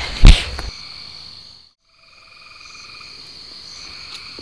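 A loud, brief rush of noise with a low thump close on the microphone. The sound then drops out for a moment, and a steady night chorus of frogs and insects comes back.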